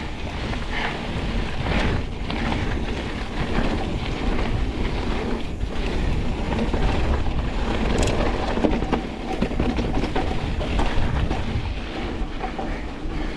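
Pivot Switchblade mountain bike ridden fast down rocky trail: a steady rumble of tyres over rock with wind on the microphone, and many short clatters and knocks from the bike over the chunk.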